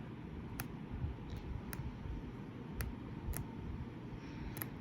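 Sheets of a 12-by-12 paper pad being handled and turned: a low rustle of paper with several sharp clicks spread about a second apart.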